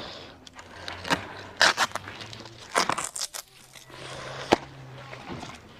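Irregular clicks, knocks and scraping of parts and tools being handled, with a faint low hum for about two seconds in the second half.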